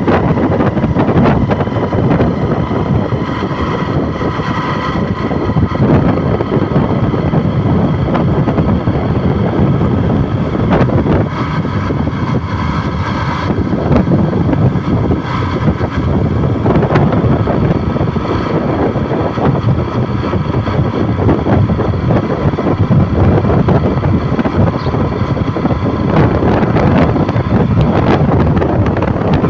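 Loud, steady wind noise on the microphone over the sound of a vehicle in motion.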